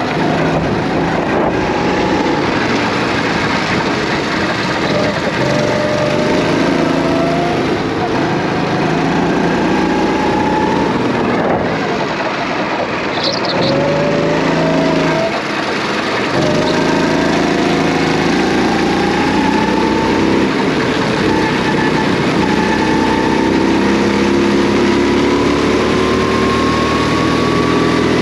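Go-kart engine running hard during a lap. Its pitch dips briefly twice in the middle as it eases off for corners, then climbs steadily as it accelerates down the straight near the end.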